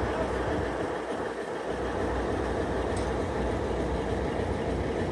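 Passenger train rolling along, heard from aboard: a steady rumble of wheels on rail over a low diesel drone from the Alco locomotives pulling it.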